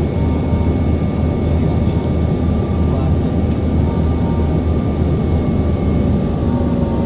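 Steady engine noise inside an airliner's cabin: a strong low drone with several steady high whining tones over it, unchanging throughout.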